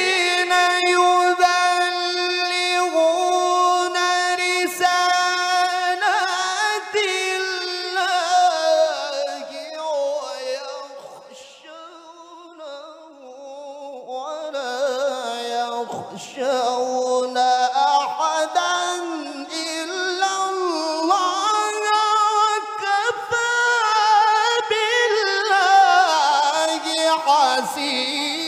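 A male qari reciting the Quran in the melodic tilawah style. He holds a long high note steady at first, then moves into winding, ornamented runs, goes quieter about ten seconds in, and builds up again from about fourteen seconds.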